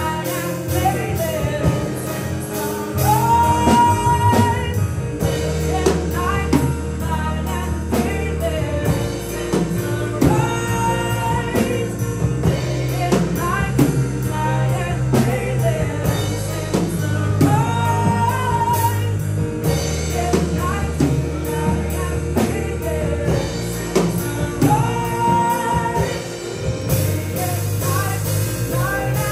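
Worship song with singing over a band, with steady bass notes and drums keeping a regular beat.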